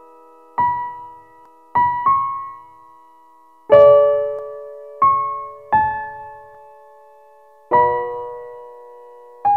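Background music: slow, sparse piano notes struck one or two at a time and left to ring out and fade, with a fuller, louder chord about three and a half seconds in.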